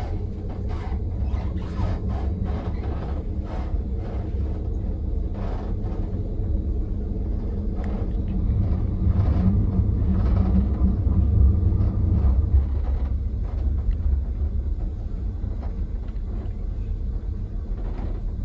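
Interior of a Trilex regional train rolling slowly into a station: a steady low rumble with clicks of the wheels over rail joints and points, about two a second at first and sparser later. The rumble swells for a few seconds in the middle.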